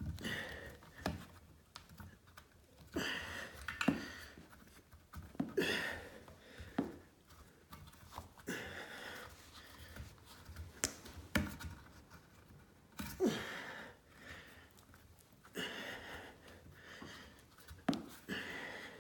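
Quiet, irregular rubbing and handling sounds as a rubber tank-to-bowl gasket is stretched and pulled around the hex nut on the underside of a porcelain toilet tank.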